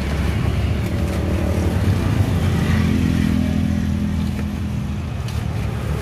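A motor vehicle's engine runs close by as a steady low rumble, its hum growing stronger around the middle. A few faint crunches come from a knife cutting through a crisp fried banana fritter on a plastic board.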